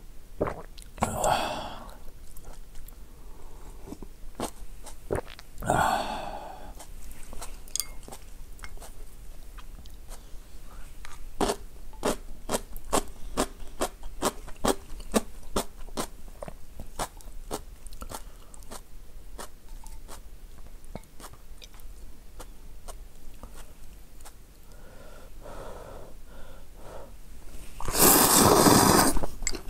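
Close-miked eating of instant ramen. The broth is loudly sipped from the bowl twice early on, then comes a long stretch of wet chewing with quick clicking mouth sounds, about three a second. Near the end there is one long, loud slurp of noodles.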